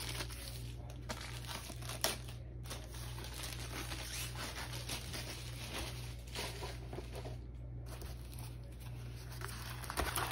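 Plastic wrapping crinkling and tearing as a rolled diamond painting kit is unwrapped, with a run of small clicks and one sharper click about two seconds in. The paper-backed canvas rustles as it is drawn out and unrolled.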